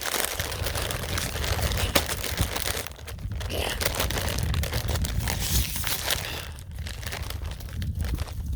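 A potato chip bag crinkling and rustling as it is handled and torn open.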